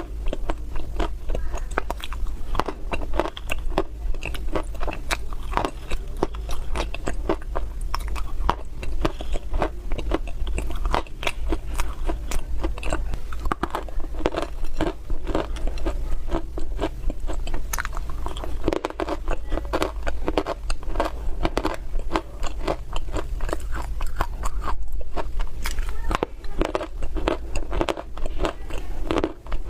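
Close-miked bites and chewing of crunchy dry clay (loess), a dense run of irregular crackling crunches, over a steady low hum.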